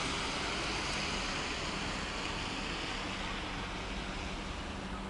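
Steady outdoor background noise: an even hiss with a low rumble underneath, fading slightly, with no distinct events.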